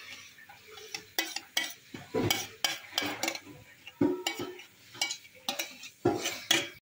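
Metal spoon scraping and clinking against a metal bowl, with soft wet plops, as a thick creamy spinach-and-chicken quiche filling is spooned out: a string of irregular sharp clicks and scrapes.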